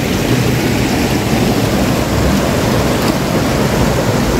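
A shallow river flowing over rocks, a steady loud rush of water with no breaks.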